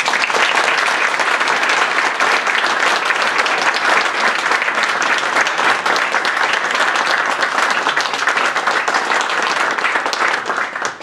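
Audience applauding, a steady clapping that starts all at once and dies away near the end.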